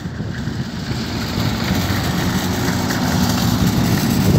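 Boeing 737-800's jet engines on final approach, a steady low rumble that grows slowly louder.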